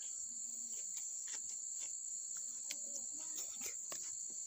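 Steady high-pitched chorus of insects. Over it come a few faint clicks and soft mouth sounds from someone eating by hand.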